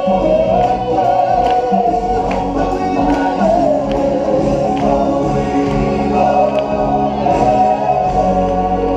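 Music with a group of voices singing together like a choir, sustained and wavering in pitch.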